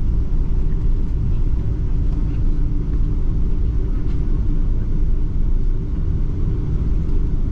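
Steady low rumble of a Boeing 777-300 airliner heard from inside the cabin, even and unbroken throughout.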